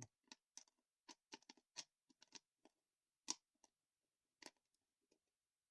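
Faint, irregular light clicks and taps of a small container being handled and turned over, the sharpest about three seconds in and another a second later.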